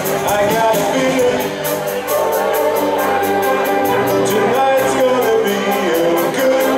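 Wind band with drum kit playing live: brass and woodwinds holding and moving between notes over a steady cymbal beat.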